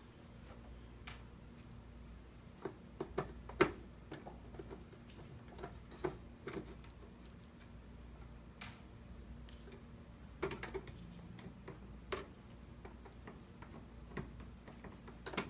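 Scattered light clicks and ticks from a Phillips screwdriver backing screws out of the plastic base of a point-of-sale register, over a faint steady low hum.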